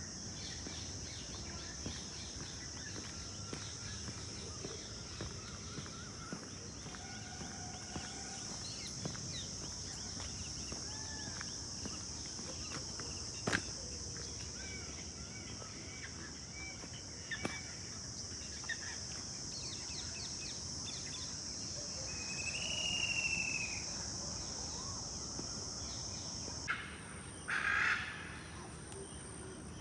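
Outdoor lakeside ambience: birds calling now and then over a steady high-pitched hiss, with one longer, louder call about three-quarters of the way through. A couple of brief louder noises come near the end.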